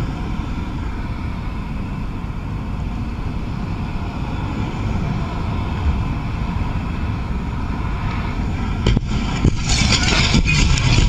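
Steady wind and road noise on a camera riding on a moving motorcycle. About nine seconds in come two sharp knocks, then a louder, harsher rushing noise.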